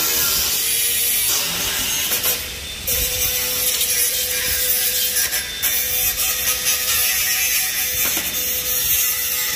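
A power tool working on the steel of a tractor rotary tiller, a steady harsh hiss with a steady motor tone beneath it. The sound dips briefly a couple of seconds in, then carries on.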